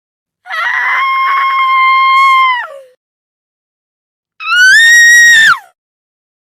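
A woman screaming twice: first a long held scream of about two seconds that drops away at the end, then after a silent pause a shorter, higher-pitched scream that rises at the start and falls off at the end.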